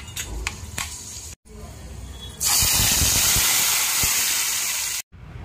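Hot oil in an aluminium kadhai sizzling loudly as an ingredient goes into it: a steady hissing that starts suddenly about halfway through and stops abruptly near the end. Before it, a few light clicks over a low hum.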